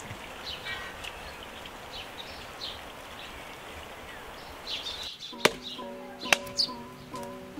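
Small birds chirping over a steady outdoor hiss. About five seconds in, gentle plucked-string background music starts, and over it come two sharp cracks of dry deadwood being handled.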